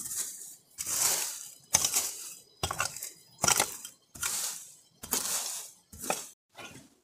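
Hand hoe chopping into dry leaf litter and soil and scraping it away while clearing ground. About eight strokes come a little more than one a second, each a sudden hit fading into a rustle of leaves.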